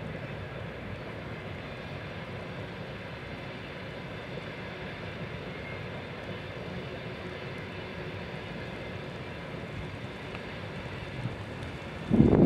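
Distant freight train rolling across a viaduct: a steady low rumble of wagons on the rails. Near the end, a brief loud gust of wind buffets the microphone.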